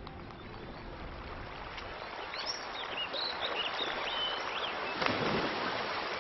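Outdoor ambience of steady running water, with a bird chirping several times in the middle and a brief louder rush of noise about five seconds in.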